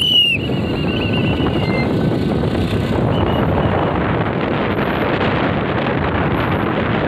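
A traffic whistle blast cuts off just after the start, followed by a fainter warbling whistle for about a second and a half. After that comes a steady rush of wind on the microphone and road noise from a slowly moving car.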